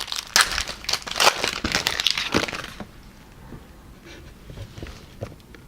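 Foil trading-card pack wrapper crinkling and crackling as it is torn open, dense for about the first three seconds, then a few light ticks and rustles as the cards are handled.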